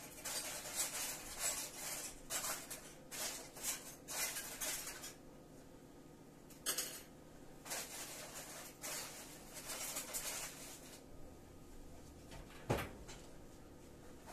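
Pots and a utensil clinking and scraping at the stovetop in a run of short clatters, with one sharp clack near the end.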